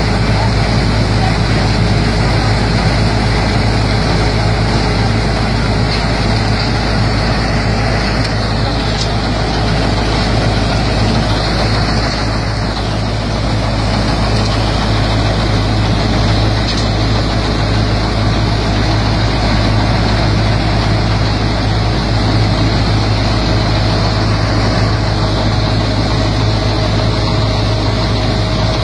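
Punni multi-crop combine harvester running at work while cutting standing wheat: a loud, steady drone of its engine and threshing machinery.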